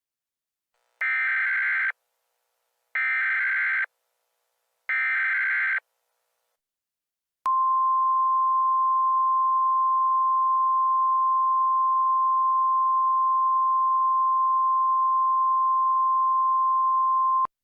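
Emergency Alert System SAME header: three one-second bursts of screeching digital data tones. A steady single-pitch attention tone of the NOAA Weather Radio kind then follows for about ten seconds and cuts off suddenly. Together they signal the start of an emergency alert.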